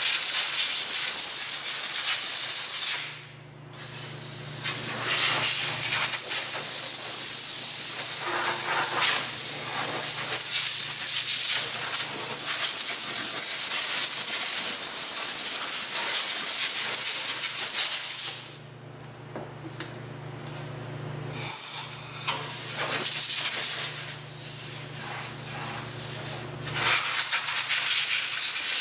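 Compressed-air blow gun hissing in long blasts as it blows dirt and debris out of an engine bay with the cylinder heads removed. The blast cuts out briefly about three seconds in and again for several seconds past the midpoint, with shorter bursts in between.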